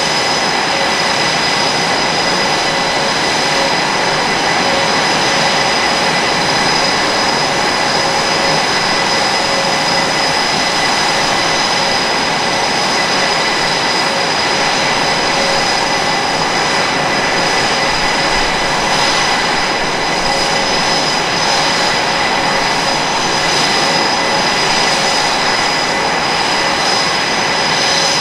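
Several F/A-18 Super Hornet jets' General Electric F414 turbofan engines running on the ground after start-up: a loud, unbroken rushing noise with steady high-pitched whining tones over it.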